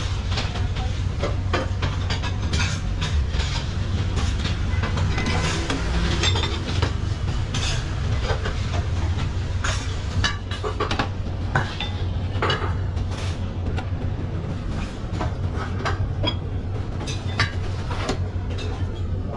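Eating-place clatter: scattered clinks and knocks of bowls, spoons and chopsticks over a steady low hum.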